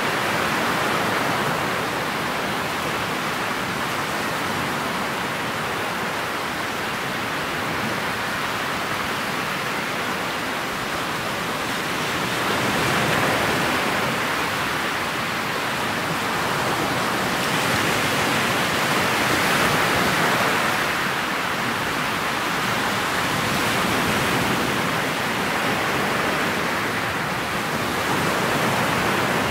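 Steady rushing of water and wind around the bow of a motorboat under way on choppy water, swelling and easing every few seconds.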